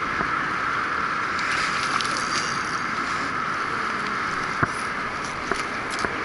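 Steady rush of fast river water churning over and below a low dam, with a few sharp clicks in the second half.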